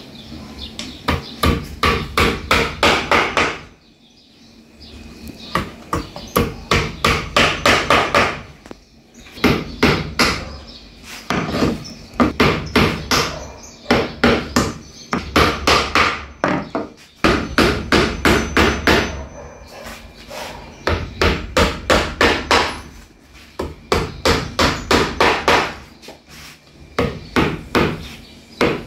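Rapid repeated striking, about four blows a second, in runs of a few seconds broken by short pauses.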